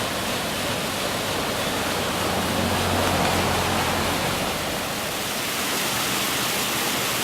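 Steady rushing of brook water spilling over falls, an even roar with no breaks.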